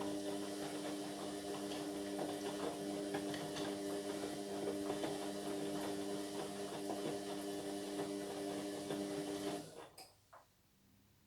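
Indesit MyTime washing machine running a wash, a steady motor hum with a rough, sloshing noise over it, cutting out about ten seconds in, followed by a faint click.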